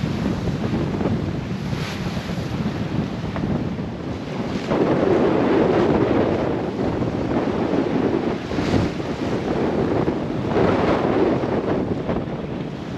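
Wind buffeting the microphone over the rush of seawater and breaking waves along the hull of a sailboat beating into wind and waves. The rush swells louder about five seconds in and again near eleven seconds.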